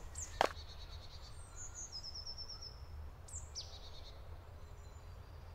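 Small birds chirping, with a short high pulsed trill and a few quick falling calls, over a low steady rumble of outdoor noise. A single sharp click comes about half a second in.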